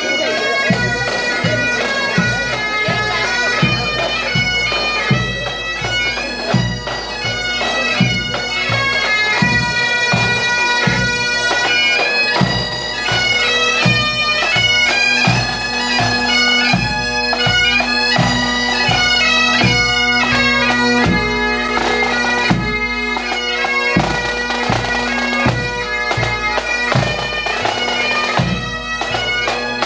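Bagpipes playing a tune over their steady drone, with a drum beating along.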